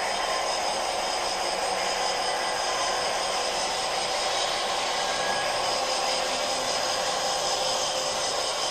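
Steady hissing, whirring background noise with a faint high whine, even and unchanging throughout.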